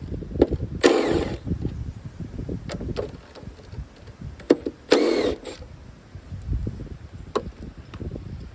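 Two short bursts of a small power tool's motor spinning up and down, about one second in and again about five seconds in, with scattered clicks and knocks of tools and parts between them.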